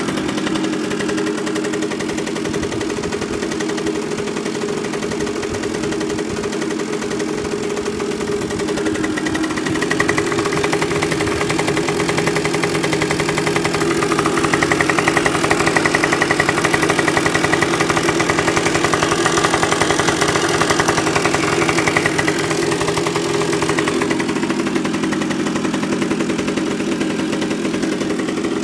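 Honda NSR50's two-stroke single, bored out to 62.9cc, running with an abnormal noise that persists even after a crank rebuild and all-new crankcase bearings. It runs steadily, picks up speed about a third of the way in, holds higher revs for several seconds, then drops back near the end.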